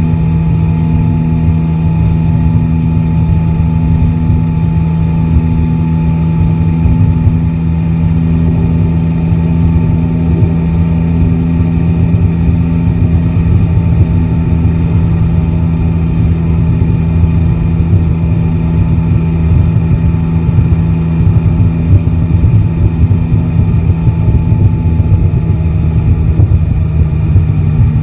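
Yamaha Tracer 9 GT's 890 cc inline three-cylinder engine running at steady revs under way, with a dense low rumble beneath. The pitch hardly changes until a slight shift near the end.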